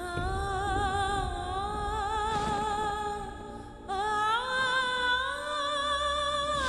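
Background score: a slow sung melody in long, held notes with a slight waver. A new phrase starts about four seconds in.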